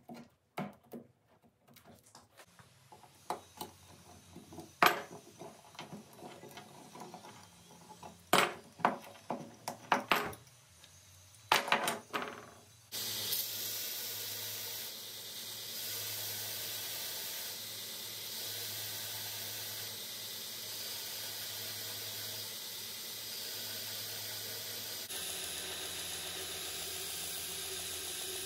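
Sharp metallic clicks and knocks as brass pins are fitted through a knife's wooden handle scales. About 13 seconds in, they give way to a belt grinder running with a steady hiss as the pinned wood-and-steel handle is ground on the sanding belt.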